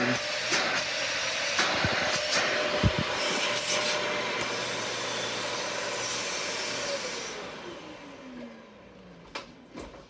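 Dyson Ball Animal 2 upright vacuum cleaner running with a steady whine and hiss, with several knocks in the first three seconds. About seven seconds in it is switched off and the motor winds down, its whine falling in pitch as the sound fades.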